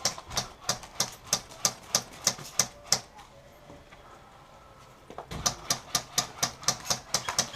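Quick, even footfalls of a player running, about three sharp steps a second. They stop for about two seconds, then start again a little faster.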